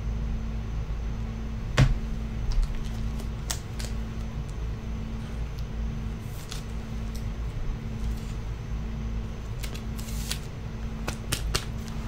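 Scattered light clicks and taps from handling baseball cards and their packaging, over a steady low hum. The sharpest click comes about two seconds in, and the clicks come closer together near the end.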